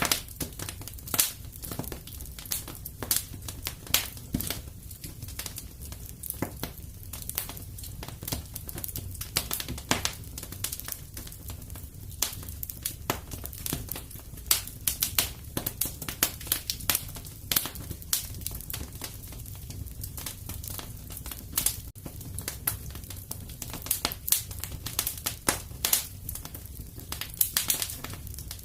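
Fireplace fire crackling, with dense, irregular sharp pops and snaps over a low steady rumble.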